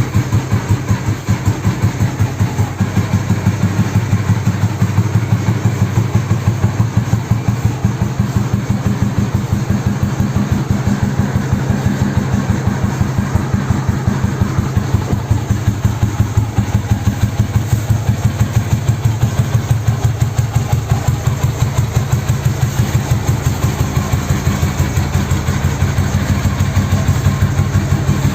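Restored 1969 Royal Enfield Bullet's single-cylinder four-stroke engine idling after starting, with a steady, even thump of firing pulses.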